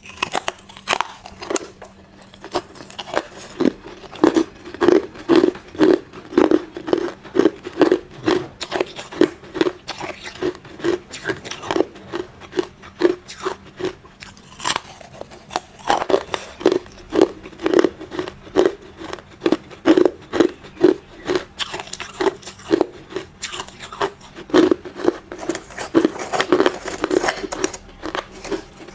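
Hard ice being bitten and chewed close to the microphone: a steady run of crunches, about two a second.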